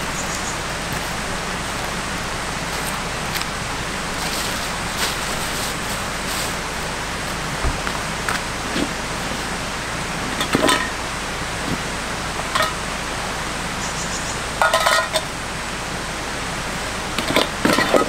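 Steady rush of a mountain valley stream, with a few short clinks and knocks scattered through it.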